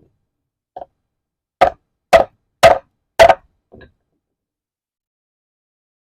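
Heavy hammer striking a hammer-type crimper: a light tap, then four hard blows about half a second apart and a softer one after, crushing the lug onto the welding cable.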